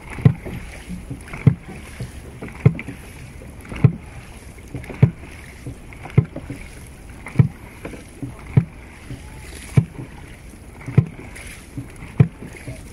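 Dragon boat crew paddling in unison: a sharp thud on each stroke, about every 1.2 seconds, over a steady wash of water.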